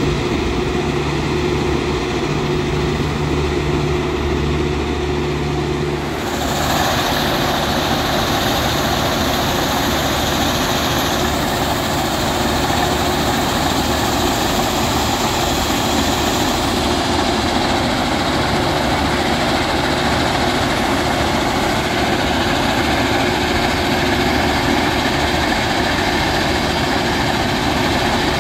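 Matisa C75-2C ballast undercutter at work: heavy machinery running with a steady engine hum. About six seconds in, a louder, harsher noise joins and carries on.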